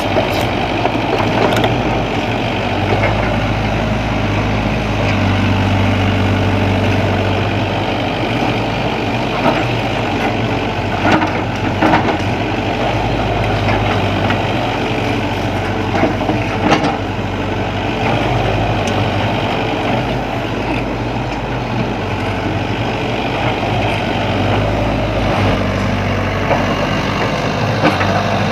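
Sany hydraulic excavator's diesel engine running steadily under working load, its drone shifting as the load changes, with a few sharp knocks and clanks from the machine at work.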